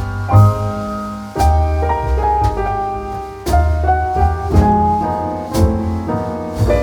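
Background music led by piano, with a steady bass line and regular percussive hits.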